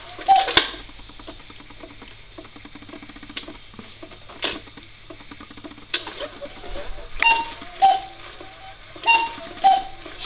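Battery-powered Rhythm quartz cuckoo clock sounding its cuckoo call: a falling two-note "cu-ckoo", high then low, twice in the latter part. Earlier there are sharp clicks and a fast rattle from the clock's works as the minute hand is turned.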